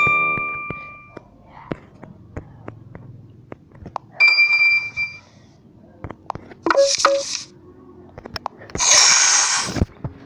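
A run of short phone notification tones. A bell-like ding rings out and fades over about a second, a bright steady beep comes a few seconds later, then two short hissy bursts follow, with faint clicks scattered between them.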